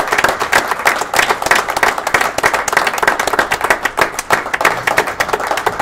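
A group of people applauding: many hands clapping densely and continuously.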